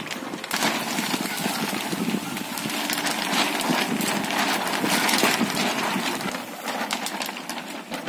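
A gust of wind, rising about half a second in and easing near the end, with the thin pages of an open Bible flapping and fluttering in it.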